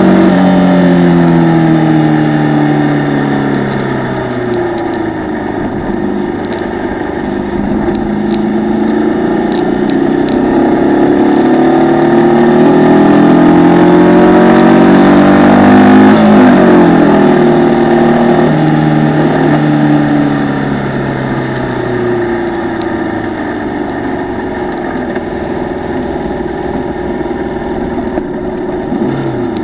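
Formula Vee race car's air-cooled Volkswagen flat-four engine, heard from the car itself. The revs fall at first, climb steadily to a peak about halfway, drop away again, and run lower and flatter near the end, over a steady hiss.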